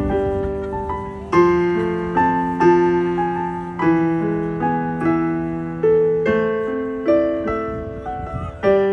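Electronic keyboard played with a piano sound through a loudspeaker: a slow piece, a melody over low notes, each new chord struck about once a second and left to ring and fade.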